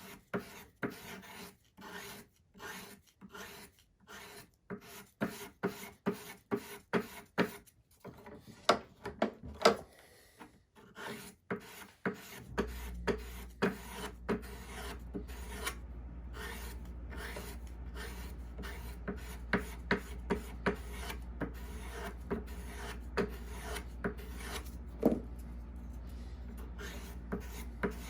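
Sharpening stick rubbed along the blade of a hook knife, a short scraping rasp about twice a second. About halfway a steady low hum comes in, and the strokes go on quicker and lighter.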